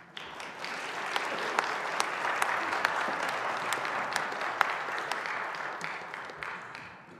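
Congregation applauding. The clapping starts at once and fades out near the end.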